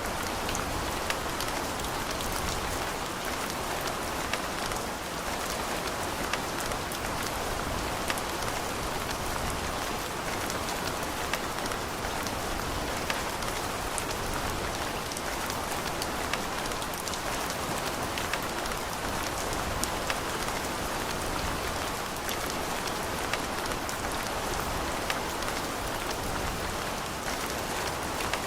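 Steady rain falling, a dense even hiss with individual drops ticking sharply through it.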